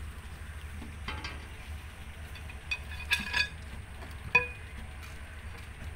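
Scattered light clinks and knocks of hard objects being handled, over a low steady hum, with one sharper clink about four seconds in that rings briefly.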